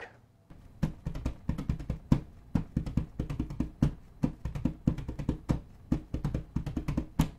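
Intro music made of percussion: a quick, uneven run of sharp drum hits, starting about half a second in.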